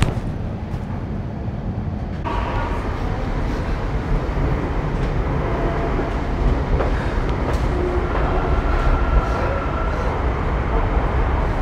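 Metro train running, heard from inside the carriage: a steady rumble that grows louder about two seconds in, with a few faint clicks.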